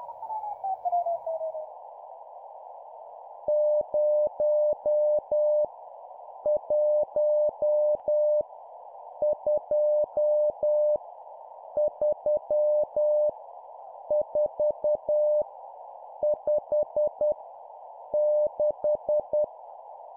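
Morse code (CW) practice tone sending numbers at 10 words per minute: a single steady tone keyed into dots and dashes, about seven digits with a pause between each, over a steady band of hiss. A short falling tone sweeps down in the first two seconds.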